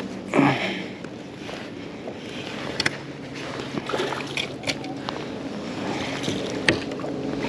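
A hooked tautog (blackfish) splashing and thrashing at the water's surface beside a kayak, with several sharp slaps of water. A loud burst of noise about half a second in is the loudest moment.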